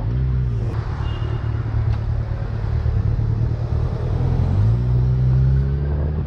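Motorcycle engine running at steady revs while riding, with wind and road noise. The engine note steps up a little about four and a half seconds in.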